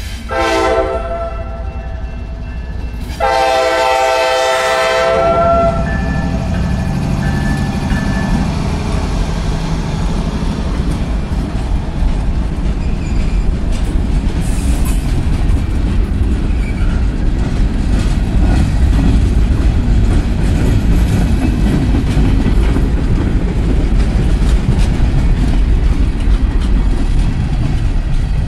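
Freight locomotive horn sounding for a grade crossing: a blast ending about a second and a half in, then a longer blast from about three to six seconds in. After that comes the steady rumble and wheel clatter of loaded gondola cars rolling past close by, growing slightly louder toward the end.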